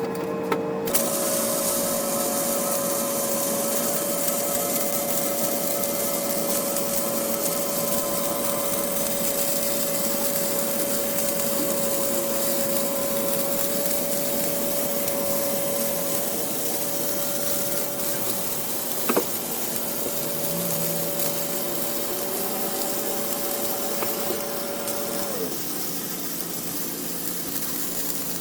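Flux-core wire welding: a steady arc hiss and crackle with the even whine of the wire feed, one long weld that starts about a second in and stops a few seconds before the end, with a single sharp click partway through.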